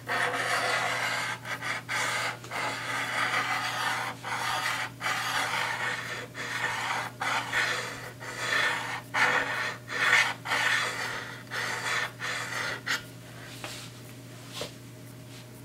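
Diamond hone paddle scraping along the steel blade of a guillotine paper cutter in repeated hand strokes, roughly one a second, sharpening the dull, chipped edge; the strokes stop about 13 seconds in.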